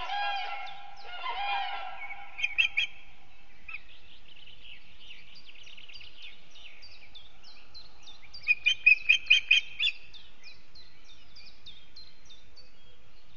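Wild birds calling: a honking call that fades out in the first two seconds, then a long run of small, quick downward chirps, broken between about 8 and 10 s by a loud series of about seven sharp calls.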